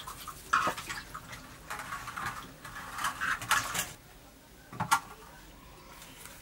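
Large bottle gourd leaves rustling and crinkling in bursts as hands lay and press them down over a steel plate, with one sharp click about five seconds in.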